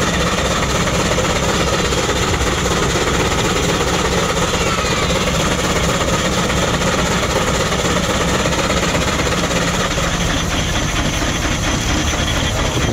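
Steam traction engine running steadily on the belt, driving a generator: a dense mechanical clatter over a fast, even low beat.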